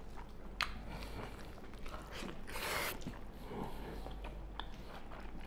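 Eating sounds of a meal eaten by hand: chewing, and fingers mixing rice and pork curry on steel plates, with scattered small clicks and a short hiss about two and a half seconds in.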